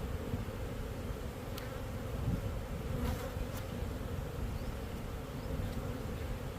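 Honeybees buzzing steadily en masse around an opened hive, with a few faint clicks or taps.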